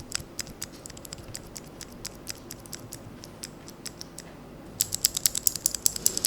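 Freshly lubed blue clicky mechanical switches of an Ajazz AK33 keyboard being pressed as a test: scattered clicks, then a fast run of rapid clicking near the end.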